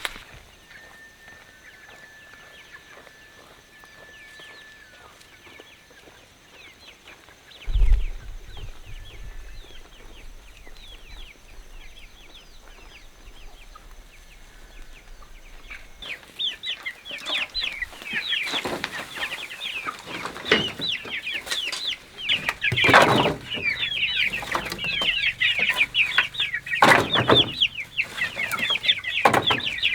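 A flock of chickens clucking and calling in many quick short cries, faint at first and much louder and denser from about halfway on. Several loud knocks sound among the calls.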